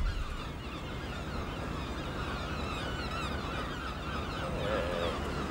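Many birds calling at once in short chirps and squawks, over a low steady rumble.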